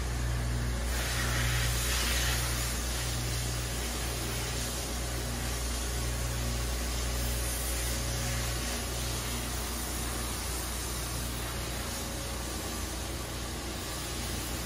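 Car wash bay machinery running, heard through a viewing window: a steady low hum of pumps and motors under a constant spray hiss, with a louder hiss about a second in.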